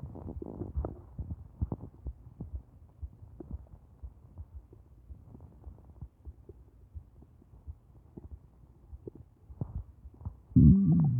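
Human stomach gurgling and rumbling, muffled and low: soft, irregular gurgles and pops. About ten seconds in comes one much louder pitched sound whose pitch wavers, lasting about half a second.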